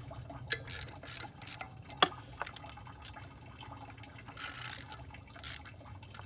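Hand ratchet clicking in short, irregular runs as small thermostat-housing bolts on a 6.7 Cummins are snugged down a little at a time. A single sharp click about two seconds in is the loudest sound, and a brief raspy burst comes about four and a half seconds in.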